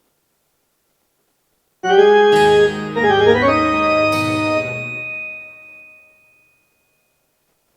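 Casio CT-X8000IN electronic keyboard sounding one of its Indian instrument tones. About two seconds in, a short phrase of sustained notes with a pitch glide starts sharply, then dies away over the next few seconds.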